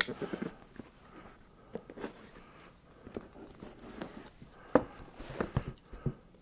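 Cardboard shipping box handled and turned on a table: soft scraping and rubbing of cardboard, with a sharp knock at the start and a few more knocks near the end.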